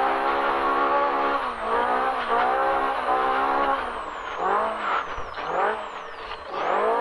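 Polaris Pro R UTV's engine at race pace, revving hard and falling off again and again as the throttle is lifted and reapplied over rough ground, with a longer drop and climb back up about two-thirds of the way through.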